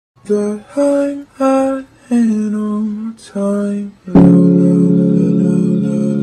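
Music: a short melody of five separate notes, each followed by a brief gap, then a sustained chord from about four seconds in.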